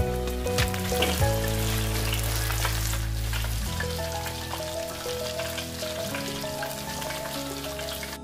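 Breaded chicken patties deep-frying in hot oil: a steady crackling sizzle, with background music playing.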